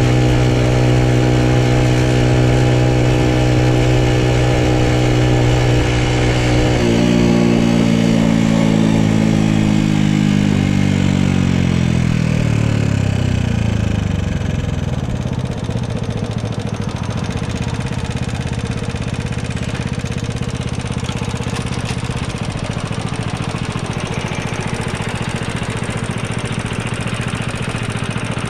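Honda Super Cub's single-cylinder four-stroke engine running steadily, then about seven seconds in its revs fall smoothly over several seconds as the throttle is shut, settling into a low steady run for the rest of the time.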